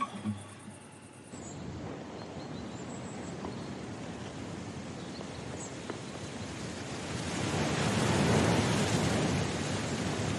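A steady rushing noise that comes in about a second in and swells louder around eight seconds.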